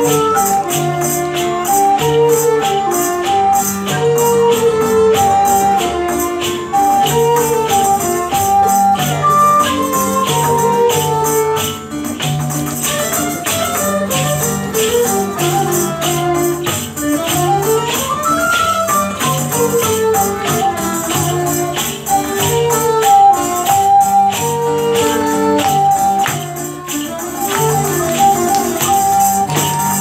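Live medieval music: a wooden recorder and a bowed fiddle play the melody over a steady tambourine beat.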